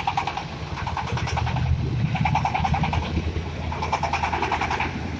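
Small single-cylinder diesel engine of a self-propelled corn sheller running under way, with an even, rapid chugging exhaust beat. It swells louder and fuller about two seconds in.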